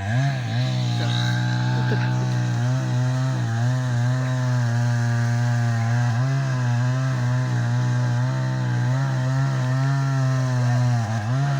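Chainsaw running steadily while cutting a tree, its engine pitch wavering slightly with a few brief dips.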